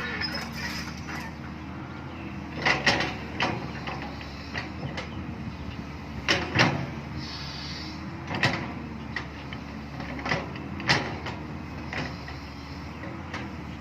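Excavator's diesel engine running steadily, with several sharp metallic clanks and knocks of the bucket and arm as it digs.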